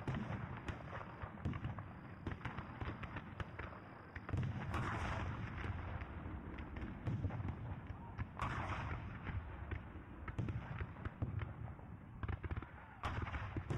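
Battle sound effects of musket and cannon fire: scattered shots crack throughout, with two louder, longer volleys about four and eight seconds in.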